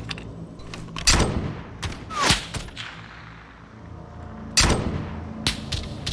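Rifle gunshots in a shootout, single shots with echoing tails: three loud ones about one, two and four and a half seconds in, and a fainter one near the end. A short falling whistle comes just before the second shot.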